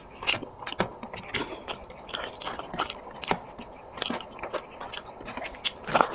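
A person chewing and eating close to the microphone, with irregular wet mouth clicks and smacks, a few a second.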